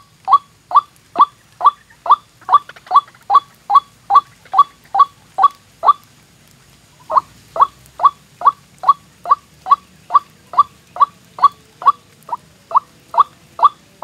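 White-breasted waterhen calling: a fast, even run of short, sharp calls, about two or three a second, breaking off for about a second near the middle and then resuming.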